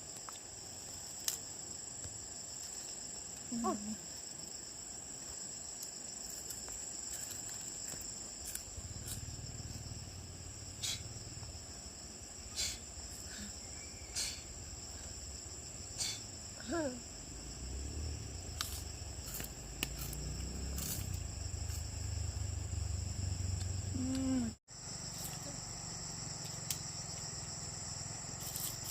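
Steady high-pitched buzz of an insect chorus, with scattered light clicks and a low rumble through the middle; the sound drops out for an instant near the end.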